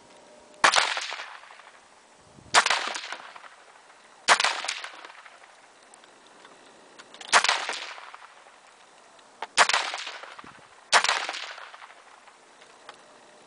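Six rifle shots fired one at a time, about two to three seconds apart, each sharp crack trailing off over about a second.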